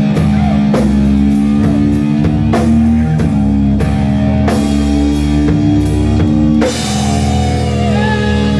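Rock band playing, with a drum kit and heavy guitar over sustained chords. A cymbal crash comes about two-thirds of the way through.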